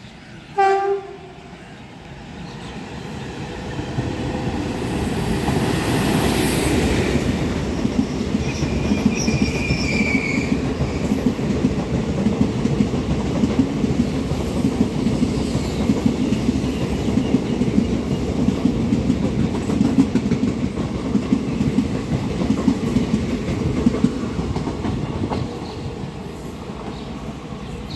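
Express passenger train sounding a short horn blast about half a second in, then passing at speed: the rush builds to its loudest as the locomotive goes by about six seconds in, followed by the steady rhythmic clickety-clack of the coaches' wheels over the rail joints, with a brief high wheel squeal near ten seconds, easing off near the end as the last coach goes by.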